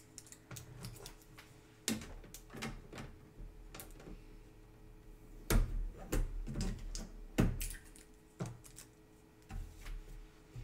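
Protective plastic film being peeled and crinkled off a new sewing machine: irregular crackles and clicks, loudest about halfway through.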